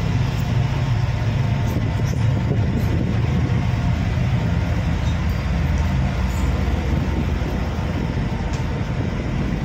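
Passenger ferry's engines droning steadily as a continuous low rumble, with the rush of the ship underway around it.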